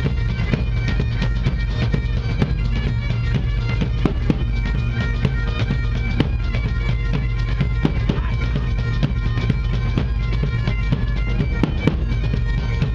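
Bagpipes playing a melody over their steady drone, backed by large drums struck with mallets in a fast, driving beat.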